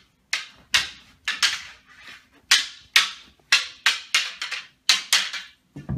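Prop swords clashing in a mock sword fight: a rapid run of sharp strikes, about two a second, each trailing off briefly.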